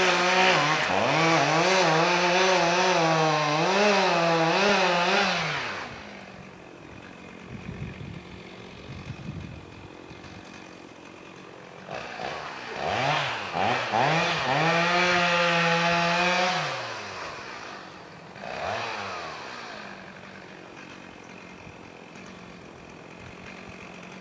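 Chainsaw revving high in two bouts of about five seconds each, its pitch wavering up and down, and dropping back to a low idle between the bouts and toward the end, with a short blip of throttle a few seconds after the second bout.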